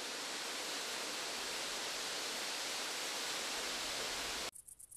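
Waterfall spray rushing steadily, cutting off abruptly about four and a half seconds in. After it comes a faint, rapid high ticking, about seven a second.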